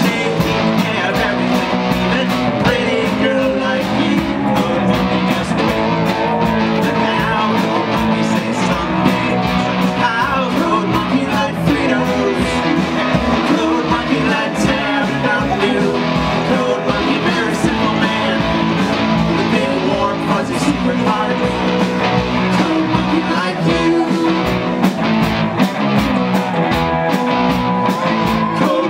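A live rock band playing a song on electric guitars, bass guitar and drums, with a keytar and a singer's voice through the PA.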